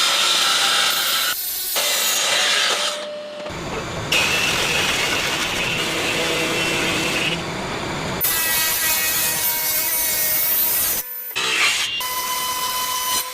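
Power tools working wood in a string of short cuts: dense grinding, sanding and cutting noise that changes abruptly every few seconds, with a steady motor whine near the end.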